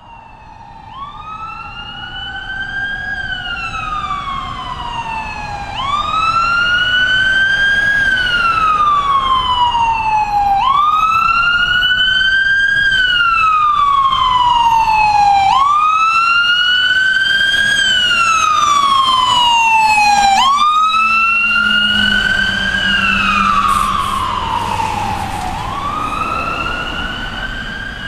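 Ambulance siren on a wail setting: each cycle climbs quickly and then slides slowly down, repeating about every five seconds. It grows louder as the vehicle approaches, and the engine's low hum can be heard as it passes, about three-quarters of the way through.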